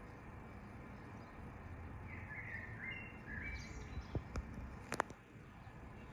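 Song thrush singing a short phrase of a few clear notes over steady background noise. About four to five seconds in come three sharp clicks, the last the loudest.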